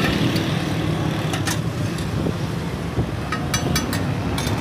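Steady street traffic rumble. Over it come several sharp metallic clinks, a steel mug knocking against a flat iron griddle, about a second and a half in and again in a quick cluster near the end.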